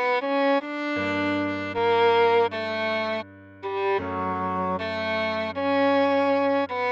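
Cello playing a slow melody one note at a time, at half speed for practice, over a held low accompaniment note that changes about a second in and again about four seconds in.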